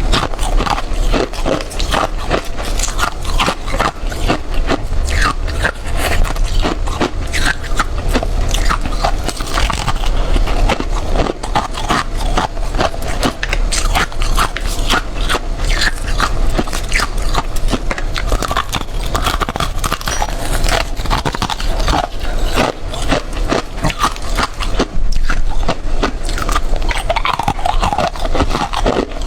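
Close-miked biting and chewing of powdery freezer frost, a dense run of soft crunches one after another.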